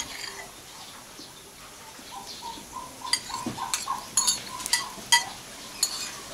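Spoon clinking against a soup bowl during eating, a handful of sharp, ringing clinks in the second half.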